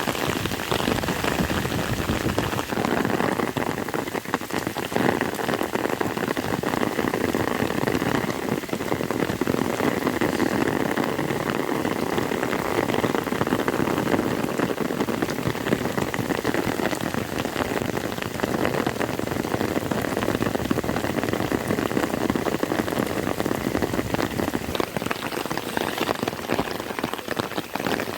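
Heavy rain falling steadily, a dense patter of drops hitting the ground and nearby surfaces.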